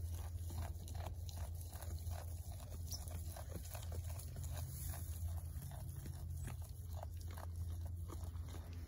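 Nigerian Dwarf goats chewing and tearing at dry hay close up: a run of soft crunches, roughly one or two a second, over a steady low hum.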